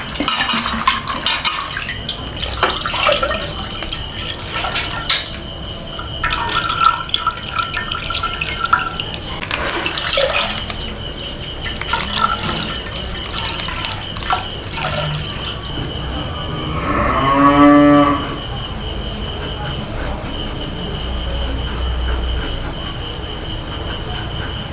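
Milk poured from a plastic packet into an aluminium pot, with the rustle of the packet and small clinks of kitchen handling. About two-thirds of the way through comes one drawn-out call that rises and falls in pitch, the loudest sound.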